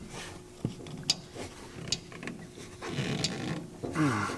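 Handling noise from a rubber air-spring helper bag being twisted by hand onto its base-plate bolt: scattered light clicks, taps and creaks as it turns and is lined up under the frame bracket.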